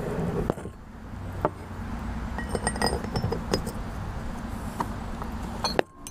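Metal clinks and knocks as the steel parts of a 1949–50 Ford steering box are handled and set down on a table: half a dozen sharp strikes spread a second or so apart, a few with a brief metallic ring, over a steady low background hum.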